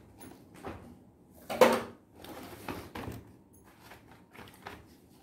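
Toys and their packaging being handled in a cardboard box: scattered knocks and rustles, with one louder knock about a second and a half in.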